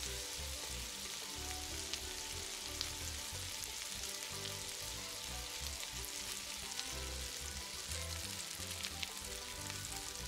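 Diced onion sizzling in hot oil in a wok, stirred with a spatula, a steady hiss throughout.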